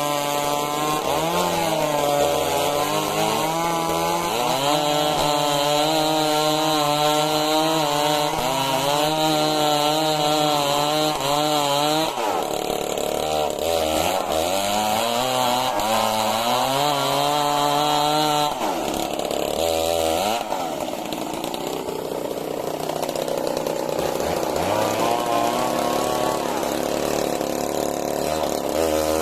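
Stihl MS 382 two-stroke chainsaw running under load, ripping lengthwise through a log. The engine pitch wavers as it cuts, its revs dropping and picking up again several times.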